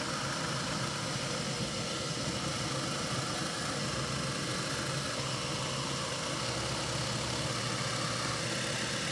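Drill press running steadily while a half-inch Forstner bit bores flat-bottomed holes in a walnut board.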